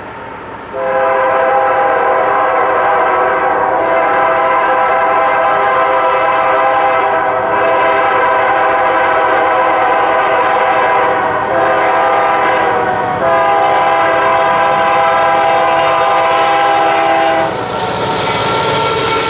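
Multi-chime air horn of a BNSF diesel locomotive sounding the grade-crossing signal, long, long, short, long, as a chord of several steady notes. Near the end the horn stops and the passing locomotive and its wagons take over with a loud rushing rumble.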